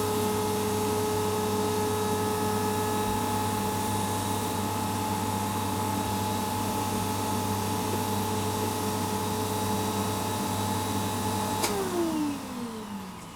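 An electric motor running at a steady pitch with a whine, then switched off with a click near the end and winding down, its pitch falling away.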